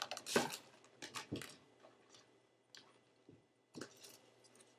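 Wrapping paper rustling and crinkling in several short bursts as it is handled and lifted out of a sneaker box.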